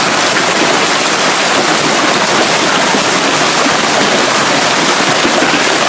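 A hailstorm with heavy rain pelting down, a loud, steady, dense hiss with no let-up.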